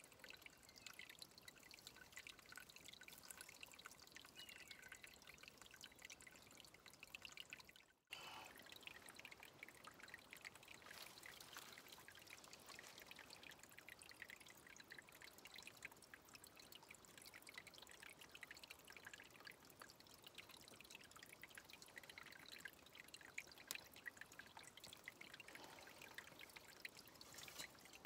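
Faint, steady trickle of a shallow stream running over rocks, with many small scattered ticks; the sound drops out for an instant about eight seconds in.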